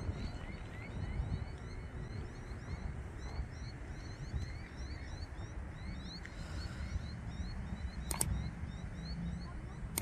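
Outdoor ambience: a steady chorus of short, rising chirps repeating over a low rumble, with two sharp clicks near the end.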